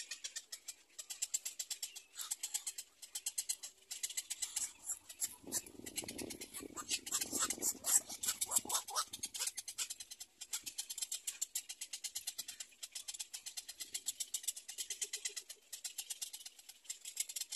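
Black-crowned night heron chicks calling at the nest: a rapid, high ticking chatter throughout, with a louder, lower burst of calls from about five to nine seconds in.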